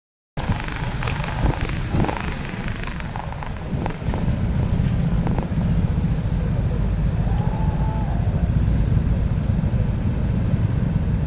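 Road traffic: a steady low rumble of vehicles on the road, with a few knocks in the first two seconds.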